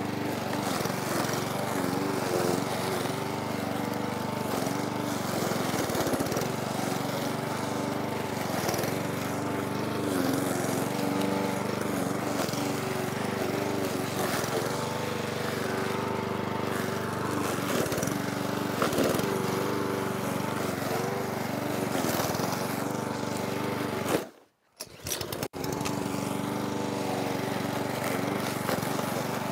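The 132 cc four-stroke petrol engine of a Parkside PBM 132 B1 walk-behind lawnmower runs while cutting through tall, dense grass, its pitch wavering as the load bogs it down. The sound breaks off for about a second near the end.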